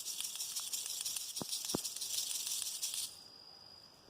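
Dried chocalho-do-mato (rattlebox) seed pod shaken in the hand, its loose seeds making a continuous dry, hissing rattle just like a rattlesnake's warning rattle. It stops abruptly about three seconds in.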